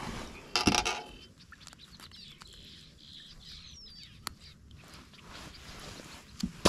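A brief scuffling burst about half a second in as a caught largemouth bass is handled, then quiet open-water ambience with a faint bird chirp a little past the middle and a single click.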